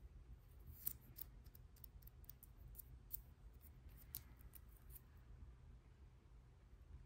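Near silence with a steady low hum and a few faint, short clicks and taps from a plastic press-on nail tip and long fingernails being handled, the sharpest about a second in and about four seconds in.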